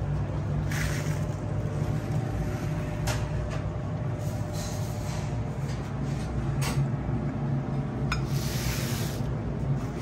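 A steady low mechanical hum, with a few sharp clicks and two short hissing noises, one about a second in and a longer one near the end.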